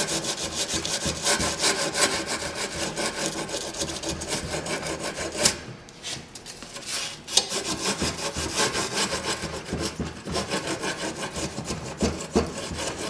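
Steel Allen wrench rubbed back and forth in rapid strokes over grip tape along the edge of a metal scooter deck: a gritty rasping that scores the tape against the deck edge to mark where to cut it. The scraping breaks off briefly about six and seven seconds in.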